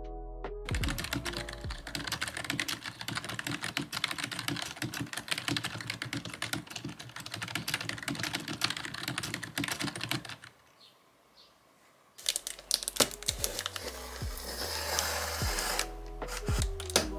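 Fast typing on a HyperX Alloy Core RGB membrane keyboard: a dense clatter of key presses over soft background music. The typing stops about ten seconds in, there is a brief near-silent gap, and then the music picks up again.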